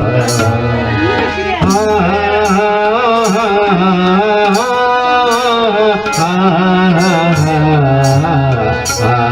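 Newar devotional bhajan music. A melodic line bends and slides in pitch over a low sustained drone, and bright clashes keep a steady beat about every three-quarters of a second.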